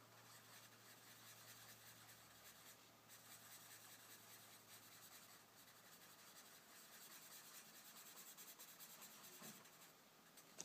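Faint scratching of a felt-tip marker on paper in rapid back-and-forth strokes as a black area is filled in, with a short pause about three seconds in.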